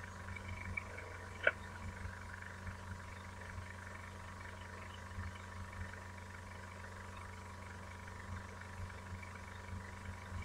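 Faint steady electrical hum with light crackling hiss, and one sharp click about a second and a half in.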